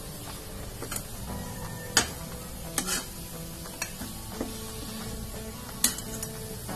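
Metal spatula stirring and mashing a potato stuffing frying in oil in a metal kadai: a low sizzle with several sharp clacks and scrapes of the spatula against the pan, the loudest about two seconds in and near the end.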